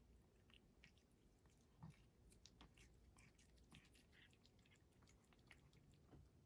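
A British Shorthair cat chewing its food, very faint, in many short irregular clicks.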